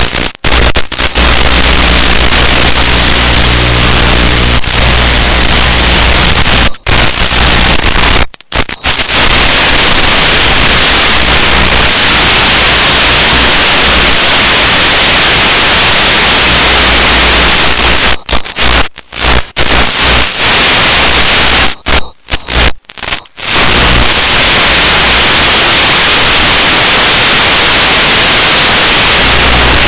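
Loud, steady static hiss from the analog FPV video link's audio channel. It cuts out to silence suddenly several times, in brief gaps, most of them between about 18 and 23 seconds in.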